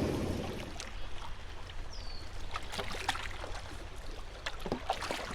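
Canoe paddling: water trickling and dripping off the paddle, with small splashes and light knocks in clusters every couple of seconds. A short high falling chirp sounds about two seconds in.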